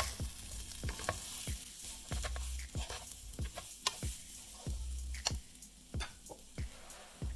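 Perforated steel spatula stirring boiled amla segments and spice mix in a metal pan: irregular scrapes and clicks of metal on metal, about three a second.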